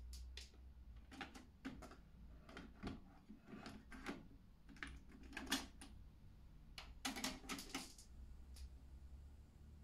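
Cassette being loaded into the deck 1 door of a Technics RS-TR333 double cassette deck: a string of light plastic clicks and clacks as the tape is seated and the cassette door is pushed shut, with a quick cluster of clicks near the end.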